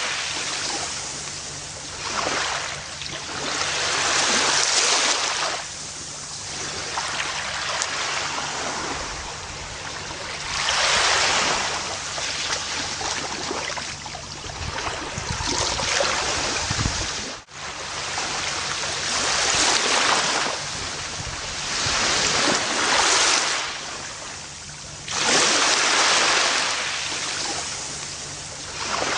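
Gentle ocean surf: waves break and wash up the beach, the hiss swelling and fading every few seconds, with a momentary gap about two-thirds of the way through.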